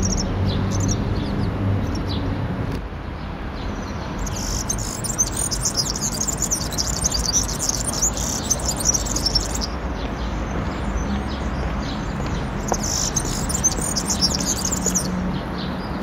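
A small songbird singing fast runs of high chirps, in two long bursts about four and twelve seconds in, over a steady low background hum.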